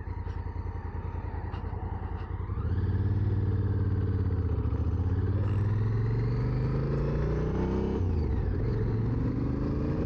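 Honda Africa Twin's parallel-twin engine pulling away at low revs, then accelerating hard through the gears: its pitch climbs, drops back at gear changes about five and eight seconds in, and climbs again. Wind rushes over the microphone as speed builds.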